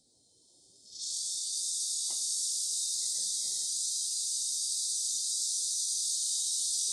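Insect chorus: a loud, steady, high buzz that swells in abruptly about a second in and then holds without a break.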